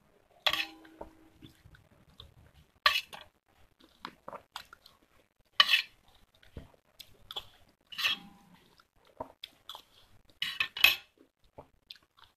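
Steel spoon scraping and clinking against a stainless steel bowl of wet red clay paste, a sharp stroke every two to three seconds, one ringing briefly after the hit, with wet mouth sounds of eating the paste in between.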